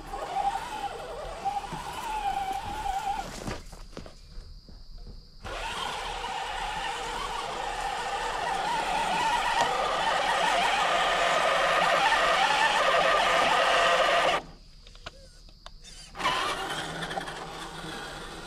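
Traxxas TRX4 RC crawler's electric motor and geared drivetrain whining as it drives, the pitch wavering with the throttle; it cuts out briefly twice, about four and fifteen seconds in. The drivetrain is running unusually loud, for a reason the owner doesn't yet know.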